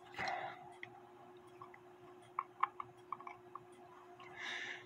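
Light, irregular clicks of a screwdriver working a small screw in a wooden clock face, about eight in a quick cluster in the middle. A short soft rustle at the start and another near the end.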